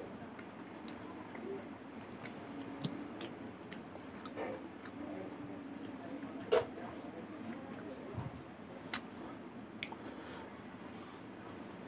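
A man chewing a mouthful of rice and pork curry, with wet mouth clicks and smacks at an uneven pace, and his fingers squishing rice on the plate. One louder click comes about six and a half seconds in.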